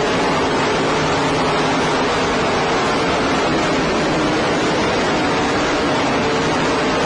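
A field of open-wheel race car engines running on the track, heard only as a steady, loud wash of noise with a faint engine drone underneath, in a poor-quality recording.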